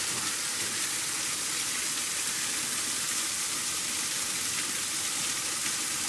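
A small waterfall, a thin stream pouring off a rock ledge and splashing onto the boulders below, giving a steady, even rush of falling water.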